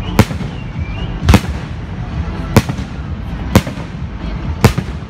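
Fireworks display: aerial shells bursting with five sharp bangs, about one a second, over a steady low rumble.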